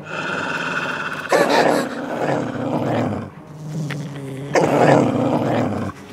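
Cartoon wolf and St Bernard dog growling and snarling at each other, with two loud growls about two seconds long each.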